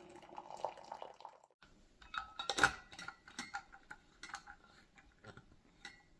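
Water pouring from a gooseneck kettle into a ceramic mug for about a second. After a short pause come scattered clicks and knocks of a stainless vacuum flask being handled on the table, the loudest knock about two and a half seconds in.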